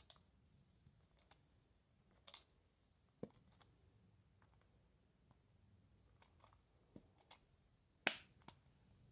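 Faint, irregular clicks and taps of small plastic fidget toys being handled, about a dozen in all, the sharpest a little after eight seconds in.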